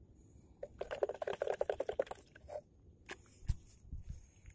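Fishing reel wound quickly, a fast run of clicks lasting about a second and a half, as the line is brought in after the fish came off. A few separate knocks follow, one with a dull thud.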